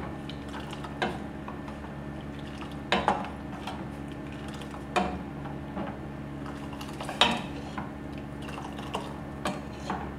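Steel ladle stirring the boiling green-tea brew for Kashmiri chai in a stainless steel saucepan, with liquid sloshing. The ladle clinks against the pan about every two seconds, loudest about seven seconds in, over a steady low hum.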